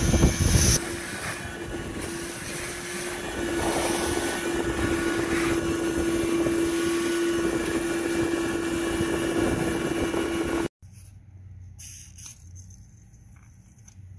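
Shop vacuum running with its nozzle in the rusty intake port of a DKW two-stroke engine block, sucking out loose soft rust. A steady hum sits over rushing air, and the sound cuts off suddenly about three quarters of the way through.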